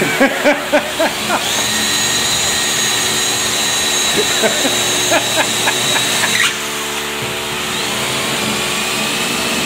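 Power tool motor running with a high steady whine that starts about a second and a half in and cuts off suddenly about five seconds later, over a steady low hum.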